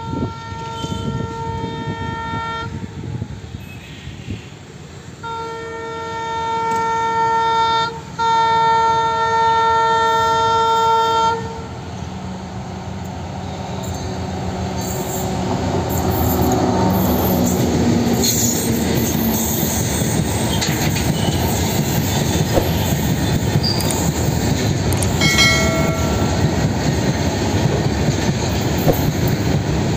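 WDM3D diesel locomotive sounding its air horn in three long blasts, the first already under way. Its engine grows louder as it draws near and passes, then goods wagons roll by with a steady clattering rumble on the rails.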